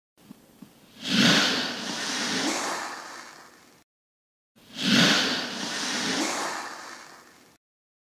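A rushing, whooshing sound effect played twice, each time swelling up sharply and fading out over about three seconds, with dead silence in between; a couple of faint ticks come just before the first.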